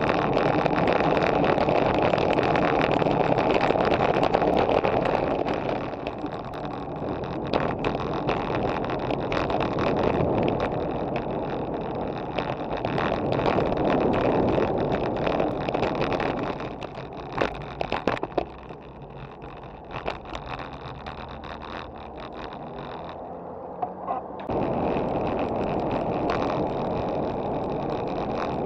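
Wind rushing over the microphone and tyre noise on asphalt from a Trek Madone 2.5 road bike ridden at about 25 to 37 km/h, with a few sharp clicks from bumps. The rush drops for several seconds and then comes back suddenly near the end.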